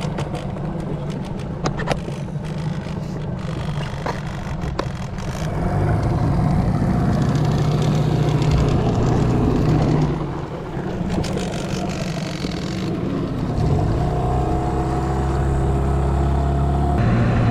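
Small boat's outboard motor running under way, speeding up about five seconds in, easing off briefly and picking up again. A few sharp knocks in the first seconds.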